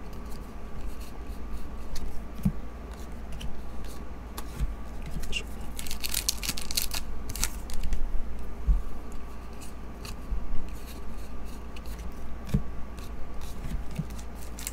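Trading cards being handled and sorted by hand: crisp slides, flicks and rustles of card stock, busiest about six to eight seconds in.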